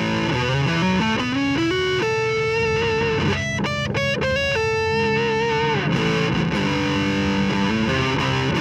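Electric guitar played through an EarthQuaker Devices Park Fuzz pedal with the fuzz turned up. It plays a fuzzy single-note lead line that climbs in quick steps, holds long notes with full, rich sustain, and has a fast flurry of notes in the middle.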